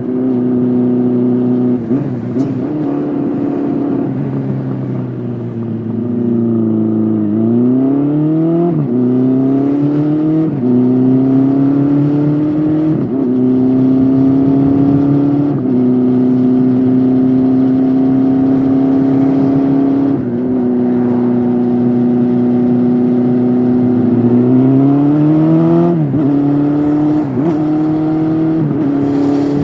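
2006 Honda CB400 Super Four's inline-four engine running through a Yoshimura slip-on exhaust under way. It revs up and drops back at a run of upshifts a second or two apart, holds a steady cruise for several seconds, then slows and pulls up through more quick shifts near the end.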